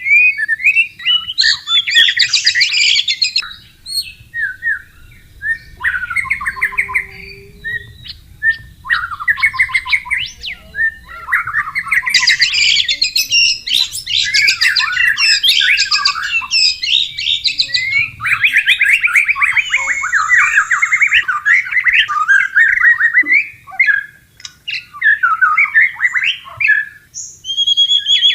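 White-rumped shama (murai batu) singing in long bouts of rapid, varied phrases and trills, broken by short pauses, over a faint low rush of flowing water.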